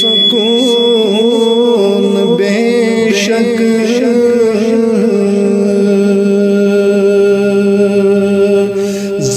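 Music: a man singing a devotional Kashmiri song, drawing out wavering wordless notes and then holding one long steady note.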